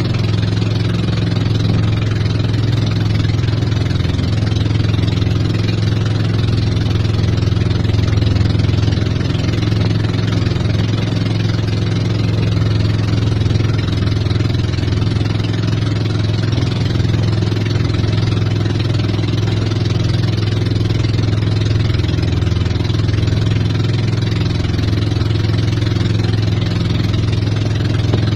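Outrigger boat's inboard engine running steadily under way, with water hissing along the hull.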